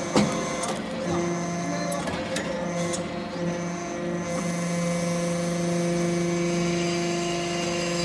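Hydraulic briquetting press compacting metal chips into briquettes. A sharp knock comes right at the start, then from about a second in the press runs with a steady hum while the next briquette is pressed.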